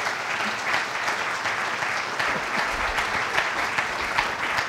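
Audience applauding steadily: many hands clapping at once in a large hall, welcoming a speaker to the lectern.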